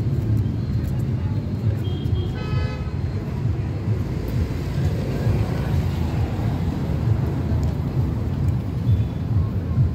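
Steady low rumble of road traffic, with a short vehicle horn toot about two and a half seconds in.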